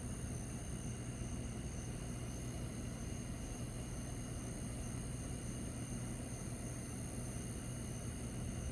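Steady outdoor background at night: a low constant hum under a hiss, with faint continuous high-pitched whining tones and no thunder or other events.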